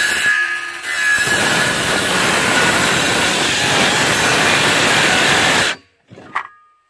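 Cordless power saw cutting through a wooden board. The motor runs with a steady whine at first, then the dense rasp of the cut goes on for about four seconds and stops abruptly near the end, followed by a brief knock.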